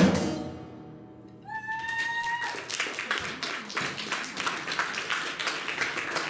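The song's last guitar-and-drum chord fades out over the first second, then the audience applauds, with a short whistle of approval as the clapping begins.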